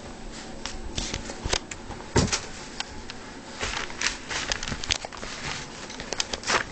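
Irregular rustling and small clicks close to the microphone, with a louder rustle a little after two seconds in.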